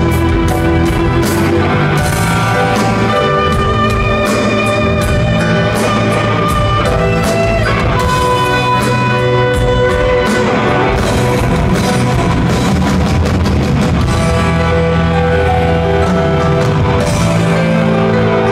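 Live heavy metal band playing loud: electric guitars and keyboards holding melodic notes over a drum kit's steady hits.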